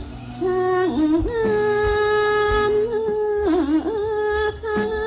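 Thai classical music accompanying khon dance: a melody of long held notes that bend and waver in ornaments, over soft low drum beats.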